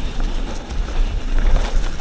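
Yeti SB 150 full-suspension 29er mountain bike ridden fast down a rough trail: a steady rumble of wind on the microphone over tyre noise, with a run of quick knocks and rattles from the bike over rough ground.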